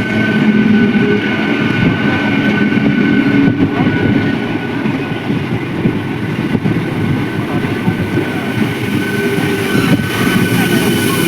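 Passenger train running along the track: a steady, loud rumble and rattle of wheels and cars, with a thin high whine held throughout.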